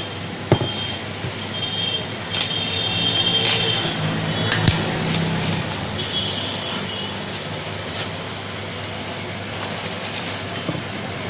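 Steady road traffic noise of passing vehicles, with a low engine hum swelling for a few seconds, a few sharp clicks and brief high tones.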